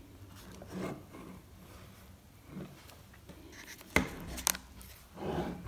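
Hands handling an iPhone box's white cardboard tray and paper insert: soft rustling and rubbing, then two sharp taps about four seconds in, half a second apart, and a brief scrape near the end.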